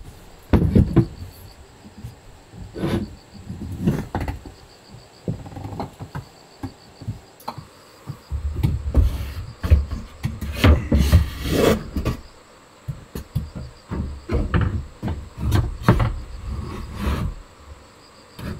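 Furniture being handled on a wooden floor: a folding chair moved and a hinged wooden tabletop leaf lifted and set down, giving irregular wooden knocks, clunks and scrapes, busiest about halfway through.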